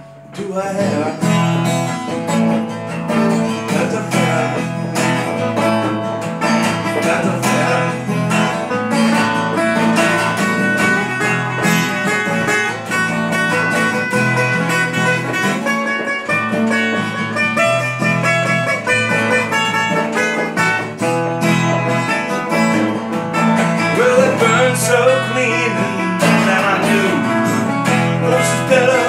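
A metal-bodied resonator guitar picked alongside a strummed acoustic guitar, playing an instrumental country-style tune. The duet comes in about half a second in, after a short lull, and keeps going.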